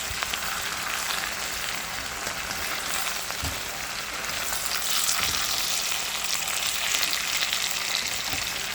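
Vegetables stir-frying in butter and stir-fry sauce in a hot wok on high heat, sizzling with a steady hiss that grows a little louder about halfway through. A few light knocks are heard.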